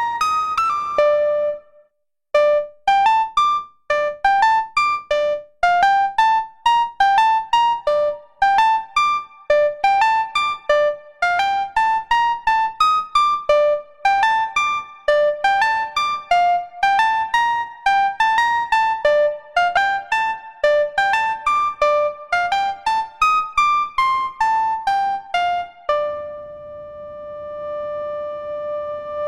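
Waldorf Pulse 2 analog monosynth playing a fast melodic run of short, plucky, bell-like notes, one after another, with a brief pause about two seconds in. Near the end, one sustained note takes over and swells.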